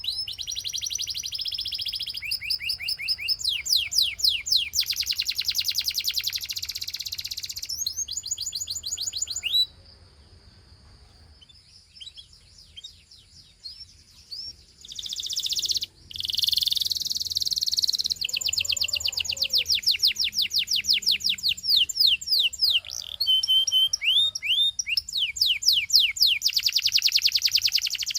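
Gloster canary singing: long, fast trills of repeated sweeping high notes, one tour after another, with a break of a few seconds near the middle before the song resumes.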